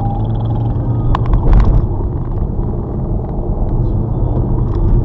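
Car driving, heard from inside the cabin: a steady low rumble of engine and tyres on a dirt road, with a quick cluster of sharp knocks or rattles about a second and a half in.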